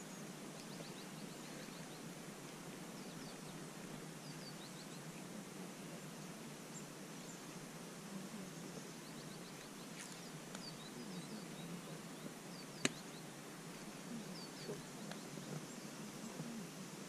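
Faint steady low background noise with small birds chirping in short high runs every few seconds. A single sharp click comes about thirteen seconds in.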